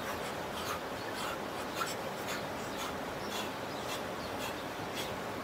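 Soft rhythmic rustling about twice a second, from body and clothing movement during arm exercises, over a steady rushing background noise.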